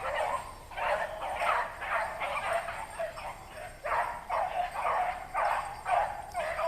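Hounds baying in a rapid, overlapping string of barks while running a trail in chase.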